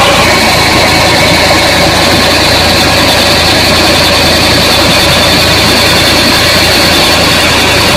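Fiat 480 tractor's diesel engine running steadily, turning a tubewell pump by belt, mixed with water gushing from the discharge pipe into the tank and channel.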